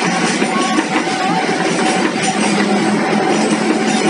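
Passenger train coaches passing at speed close by, wheels running loud and steady on the rails, with guitar music playing over it.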